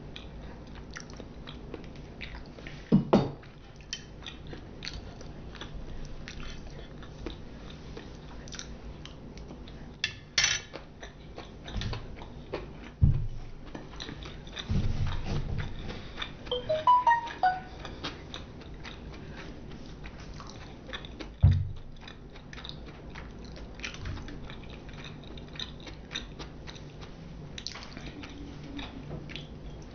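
Close-miked chewing and biting of sushi and sashimi: many small wet mouth clicks and smacks, with a handful of louder short knocks scattered through.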